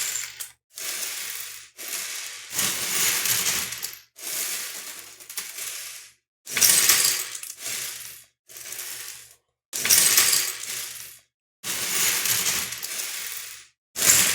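Small hard plastic LEGO Technic pieces clattering and rattling against each other, as when pieces are tipped out or sorted. The sound comes in about eight separate stretches of one to two seconds, each starting and stopping abruptly.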